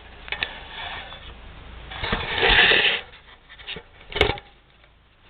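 Hand work on the front suspension, tools and parts being handled: a few light clicks, a harsh scraping sound about two seconds in that lasts about a second, and a single sharp knock about four seconds in.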